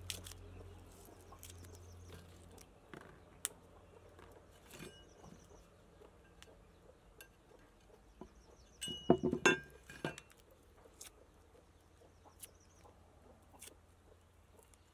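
Small clicks and rustles of garlic cloves being peeled by hand, with a short clatter of sharp knocks from a cleaver about nine seconds in, the loudest sound.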